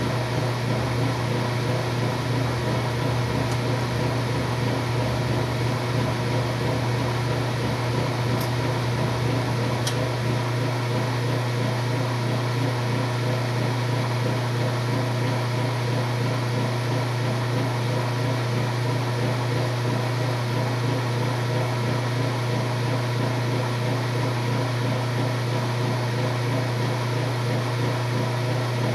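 Washing machine running with a strong, steady hum; a low rumble underneath drops away about ten seconds in.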